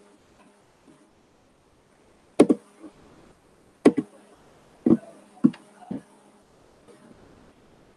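About five sharp, irregularly spaced clicks of computer keys being struck while an equation is typed, close to the microphone.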